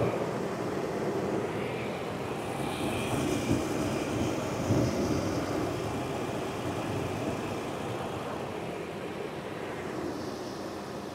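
Toyota 4Runner's 4.0-litre V6 engine idling steadily, running to circulate fluid through a newly installed transmission cooler while its lines are checked for leaks. The sound slowly gets a little quieter.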